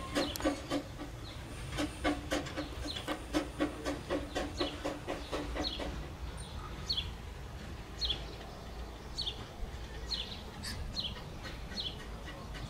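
Small narrow-gauge steam tank locomotive, Corris Railway No. 7, running slowly away with a rhythmic clatter of wheels and exhaust beats that fades out about halfway through. A bird then calls over and over in short, falling chirps.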